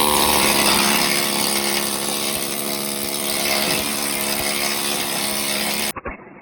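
A power tool running steadily under load, a high-pitched motor whine with a bright hiss. It cuts off abruptly near the end.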